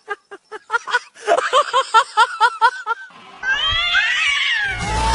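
A cat giving a rapid string of short, arched meows, about four a second, then a stretch of tones sliding down in pitch. Loud music starts just before the end.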